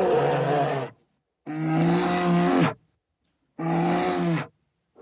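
A bear calling in three drawn-out, pitched calls of about a second each, separated by short silences, each ending with a slight drop in pitch.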